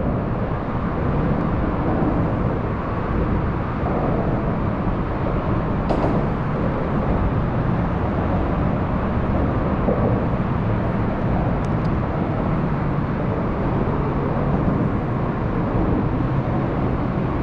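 Steady rumble of road traffic on the bridge overhead, with a single short click about six seconds in.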